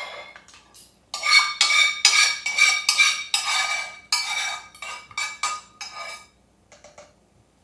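A metal utensil scraping and clinking against a bowl in quick repeated strokes, about three a second, with a ringing tone; it stops shortly after six seconds in, followed by a few faint taps.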